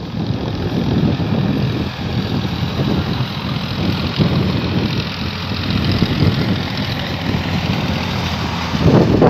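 Heavy truck's diesel engine running steadily under load on a steep uphill climb, with a louder swell near the end.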